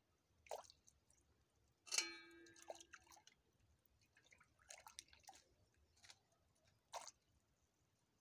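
Water dripping and splashing faintly as a plucked hen is handled and cut over a metal basin of water, with a few small clicks. About two seconds in, one sharp knock rings on for about a second.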